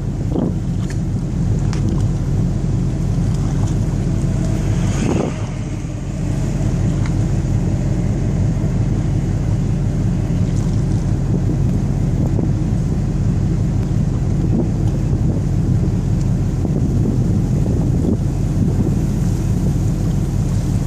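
Wind buffeting the microphone: a steady low rumble that eases briefly about five seconds in.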